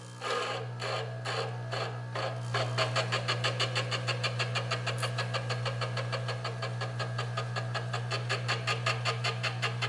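Grinding attachment on a lathe running with a steady hum just after switch-on, as a form tool is ground against its small wheel to shape a radius. The grinding comes as rapid, even scraping ticks, about five a second, from a couple of seconds in.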